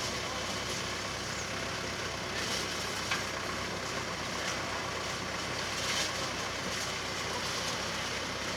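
Engine of a multi-axle sweet corn harvesting machine running steadily, with a few faint knocks and clatters over it.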